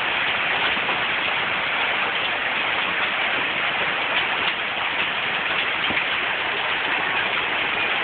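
Heavy storm downpour of rain and hail, falling steadily without a break.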